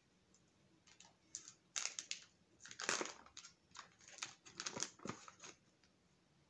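Mylar foil tobacco pouch crinkling and rustling in a string of irregular crackles as it is handled and pulled open by hand.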